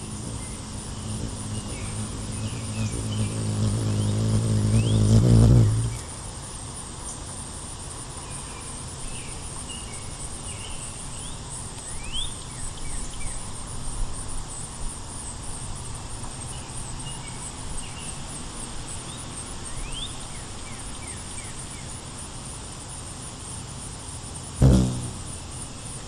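Ruby-throated hummingbird's wings humming close to the microphone, a low buzz that grows louder for about six seconds and then stops abruptly as the bird settles at the feeder. A steady, pulsing high insect trill carries on underneath, with a few faint short chirps, and a brief burst of wing hum comes again near the end.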